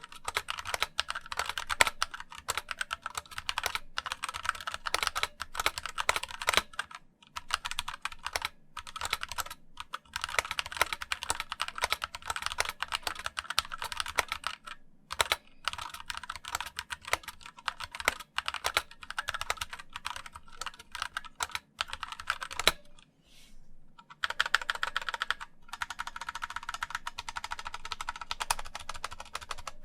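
Fast typing on a MageGee MK22 wired mechanical keyboard with linear red switches: a dense run of keystroke clacks, broken by a few short pauses.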